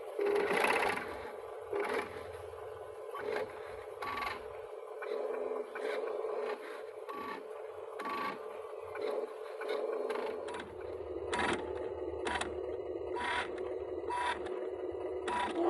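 A machine's steady whine with sharp clicks and knocks about once or twice a second, busier in the second half, from an excavator at work.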